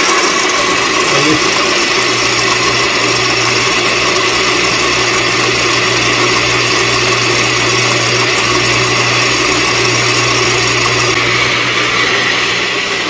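Countertop blender running steadily at speed, emulsifying garlic and milk while cooking oil is drizzled in slowly through a funnel in the lid. Its tone shifts slightly about eleven seconds in.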